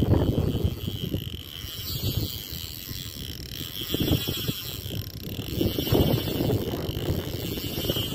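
Wind buffeting the microphone over the mechanical whirr of a spinning reel being worked while an angler plays a hooked carp.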